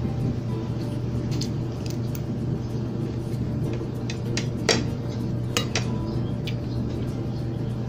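Spoon and fork clinking and scraping against a plate of rice while eating: scattered sharp clinks, the loudest a little under five seconds in. Under them is a steady low hum.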